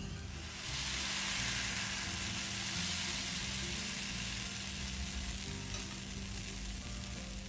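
Tomato dosa batter sizzling on a hot dosa pan as it is spread with a ladle; the sizzle starts about half a second in and then holds steady.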